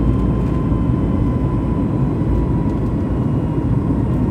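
Steady roar of a Boeing 737 MAX 8-200's CFM LEAP-1B engines and rushing air, heard inside the cabin during the climb, with a faint high whine held steady above it.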